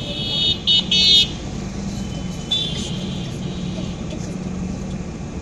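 Vehicle horn honking three short times in quick succession in the first second or so, then once more, fainter, past the middle, over a steady hum of street traffic.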